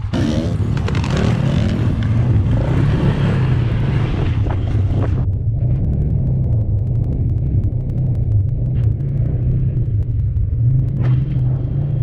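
Tesla Model 3 Performance driving, with a steady low rumble of tyres and road noise and no engine sound. A louder hiss of wind or loose-surface tyre noise lies over it and cuts off abruptly about five seconds in.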